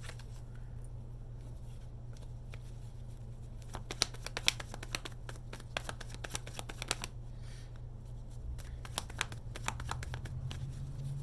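Tarot cards being shuffled by hand: quick runs of card flicks and clicks starting about four seconds in and again near the end, over a steady low hum.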